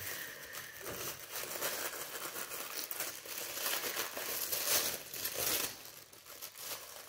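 Blue tissue paper crinkling and rustling as it is unfolded by hand from around a small wrapped item, in a run of quick rustles that gets louder a little past the middle.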